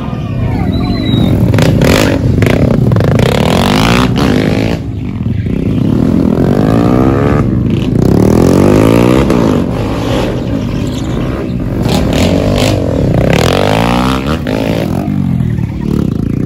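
Stunt motorcycle engines revving hard over and over, the pitch climbing and dropping as the riders throttle up and back off, with a few short clattering knocks mixed in.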